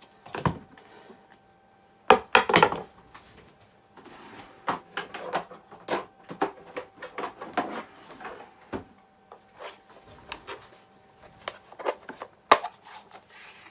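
A whetstone and sharpening gear being packed away and handled on a bench: irregular knocks, clicks and rubbing, with a cluster of loud knocks about two seconds in and a sharp knock near the end.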